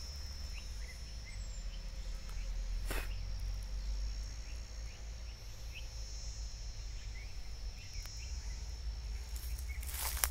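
Outdoor ambience: a steady high-pitched insect drone with scattered short bird chirps over a low rumble, and a single sharp tick about three seconds in.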